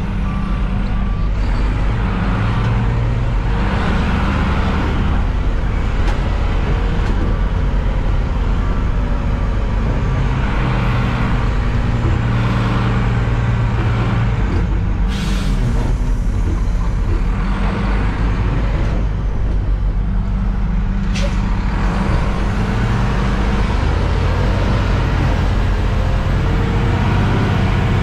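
Side-loader garbage truck's diesel engine running under way, heard inside the cab, its note rising and falling as it pulls and changes speed. Two short, sharp noises cut through, about halfway in and again some six seconds later.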